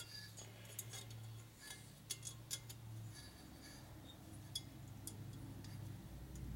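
Faint, scattered metallic clicks and clinks of a valve spring compressor being turned down on a Harley-Davidson shovelhead cylinder head, compressing the valve springs.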